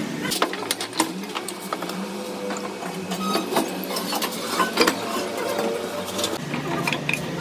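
Irregular metallic clinks and knocks, with brief ringing, of tools and steel parts being handled during truck gearbox repair work.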